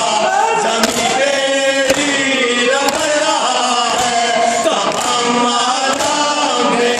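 Men's voices chanting a noha, a Shia lament, led by one male reciter through a microphone. Under the chant, hand-on-chest matam slaps land in a steady beat about once a second.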